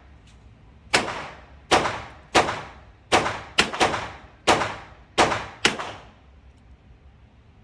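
A run of nine gunshots from a .22 handgun in under five seconds, unevenly spaced, each trailing off in a short echo; the shooting stops about six seconds in.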